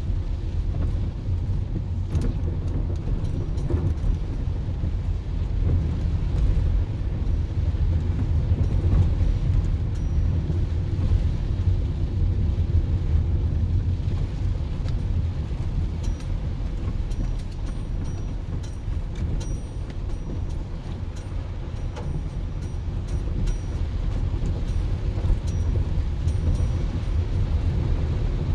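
Steady low rumble of a car driving on a wet, water-covered street, heard from inside the cabin: engine and tyres on the wet road, with faint scattered ticks higher up.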